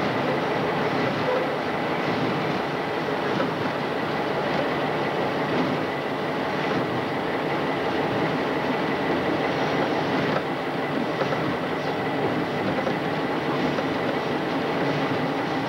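Diesel locomotive pulling a train, heard from on board: a steady mix of engine noise and wheels rolling over the rails with some clickety-clack.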